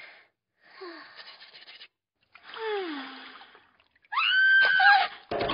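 A girl's soft, sleepy sighs and murmurs falling in pitch, then from about four seconds in a louder, high-pitched, drawn-out contented "ahh".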